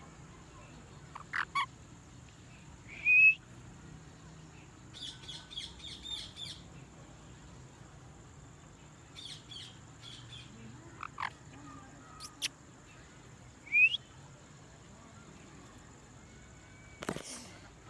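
A pet green parrot chirping at intervals: two loud short rising calls, quick runs of repeated chirps, and scattered single chirps and clicks.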